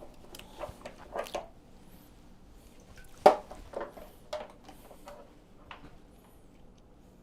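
Scattered small clicks and knocks of handling, with one sharper knock about three seconds in.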